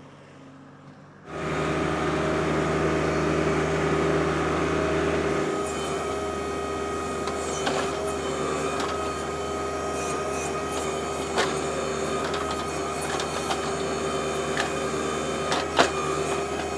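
Compact tractor diesel engines running under backhoe load with a steady hydraulic whine, cutting in suddenly about a second in. From about six seconds on, scattered sharp knocks of the backhoe bucket striking stump wood and roots.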